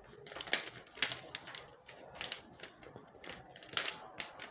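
Brown paper pattern crackling and rustling in short, irregular crackles as hands fold the slashed piece over and smooth it flat on a cutting mat to close a bust dart.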